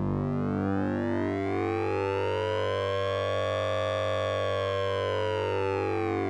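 Synthesizer sound effect using oscillator sync and ring modulation: a steady low drone under a buzzy tone whose overtones glide slowly up, peak about four seconds in, then glide back down, like a siren.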